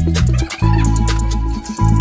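Background music with a steady beat and deep bass notes.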